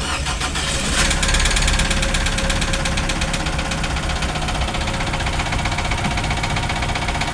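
Chevrolet Optra 1.6 four-cylinder engine running with a loud, rapid, even ticking rattle that grows louder about a second in as it is revved. This is the noise on acceleration that is being traced.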